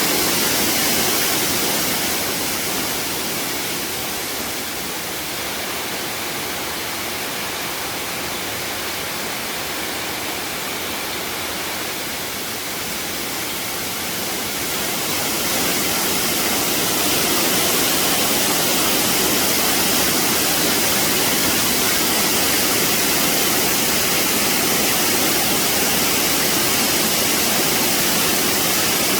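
Waterfall: a steady rush of falling water. It eases a little for a stretch in the middle and comes back up to full strength about halfway through.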